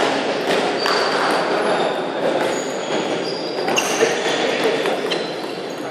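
Table tennis ball clicking off the bats and the table during a rally: a string of sharp, irregular clicks over a steady din from the hall.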